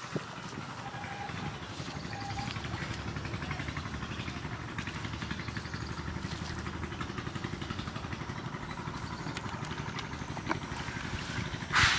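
A small engine running steadily with a fast, even throb. A short, louder burst of noise comes near the end.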